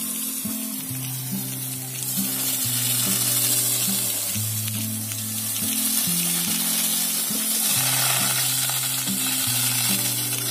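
Steady hiss of a fire hose jetting water onto burnt, smouldering undergrowth, over background music with held low notes.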